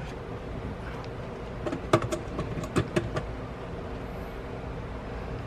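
Steady low hum with a handful of light clicks and taps from parts being handled, most of them between about two and three seconds in.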